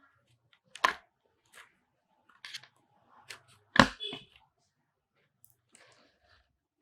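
Scattered sharp clicks and taps of a small screwdriver and parts being handled while an M.2 SSD is screwed down in an open laptop, with two louder knocks, one about a second in and one near the middle.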